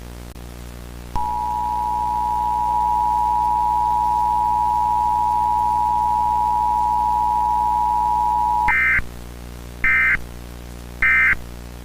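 Emergency Alert System two-tone attention signal: a steady dual tone held for about seven and a half seconds. It is followed by three short, higher-pitched digital data bursts, the SAME end-of-message code that closes an alert.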